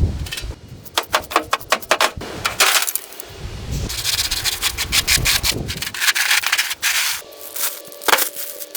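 Sanding and rubbing on a rusty car body during rust removal, coming as short bursts of scraping strokes with many sharp clicks in between.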